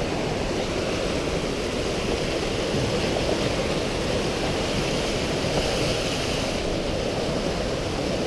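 Steady rushing of a creek spilling over small cascades close by, a continuous even wash of water noise.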